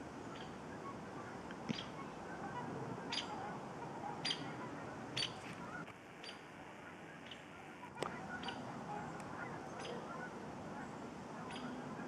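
A flock of geese and trumpeter swans honking and calling in a steady, faint chatter, with several short, high chirps and one sharp click about two-thirds of the way in.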